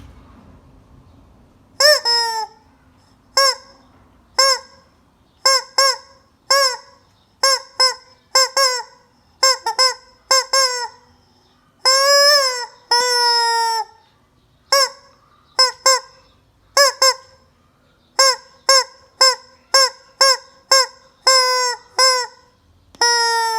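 A chicken squawking over and over: a run of short, loud, honking calls, about one a second after a quiet start, with a couple of longer drawn-out calls in the middle and near the end.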